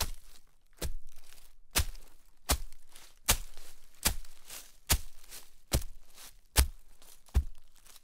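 Footsteps walking through snow at a steady pace, about ten steps, each a sudden crunch that fades before the next.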